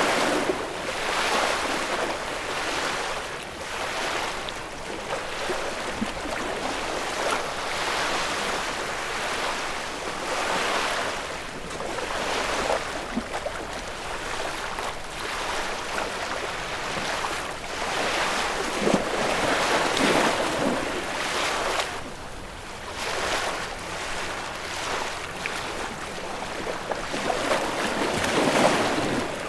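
Ocean surf: waves breaking and washing in a continuous rush that swells and eases every couple of seconds.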